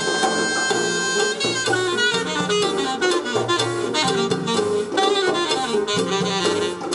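Jazz recording with a saxophone lead over a bass line, played back through Dynaco A25 speakers driven by a McIntosh MC-2105 power amplifier and a LUXKIT A-3300 tube preamplifier.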